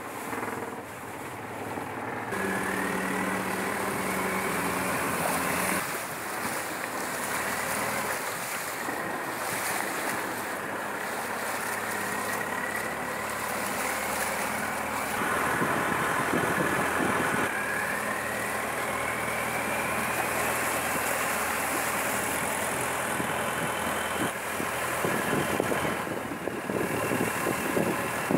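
Long-tail boat engine running under way, with a high whine in it that slowly rises in pitch several times. Wind noise on the microphone.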